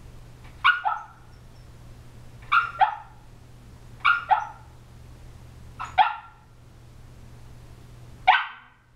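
Shiba Inu puppy barking in her sleep: five short bursts of muffled barks about every one and a half to two seconds, some of them doubled, dream barks from a sleeping dog.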